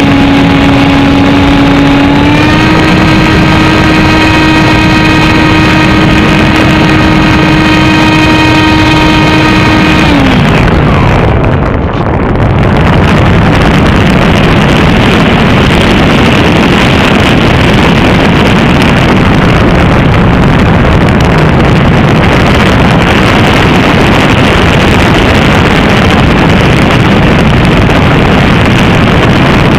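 Electric motor of a small FPV model aircraft whining steadily, stepping up a little in pitch about 2 s in. About 10 s in the whine falls away as the throttle is cut, leaving a loud, steady rush of wind on the onboard microphone.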